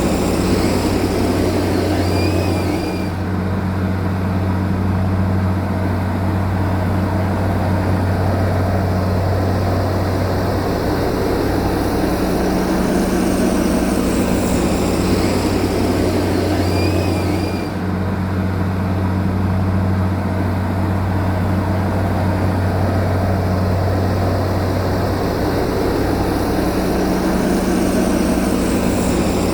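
Bulldozer's diesel engine running steadily under load, a heavy low drone, with a short high squeak twice, about fifteen seconds apart.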